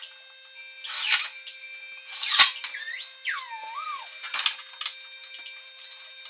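Two short bursts from a cordless drill-driver, about a second and a half apart, driving screws to fix a metal hinge to a wooden panel; the second burst is the louder. A brief squeak with wavering pitch follows.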